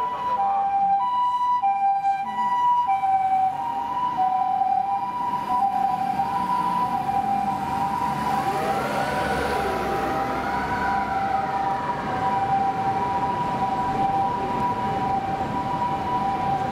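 Japanese ambulance siren sounding its two-tone hi-lo "pee-po" call, a higher and a lower note alternating about every two-thirds of a second, over street traffic. A second siren's wail rises and falls for a few seconds around the middle.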